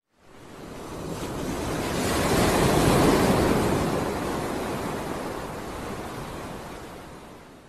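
A rush of ocean waves and wind, the sea washing past a sailing ship's bow. It swells up over about three seconds, then slowly fades away.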